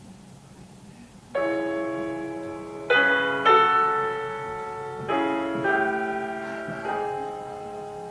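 Solo piano playing a slow classical passage. After a quiet first second or so, about six chords are struck, each left to ring and fade before the next.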